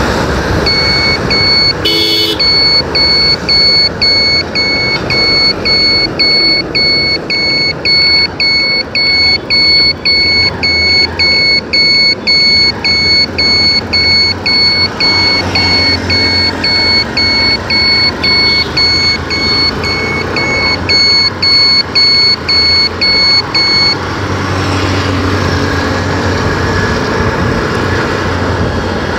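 An electronic beeper sounds an even series of high beeps, about two a second, then stops abruptly some five seconds before the end. Under it is the steady engine and wind noise of a motorcycle riding through city traffic. A short sharp noise cuts in about two seconds in.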